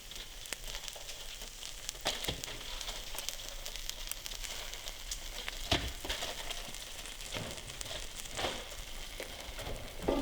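Butter sizzling and crackling in a frying pan as Reuben sandwiches on rye toast, with a few louder clicks now and then.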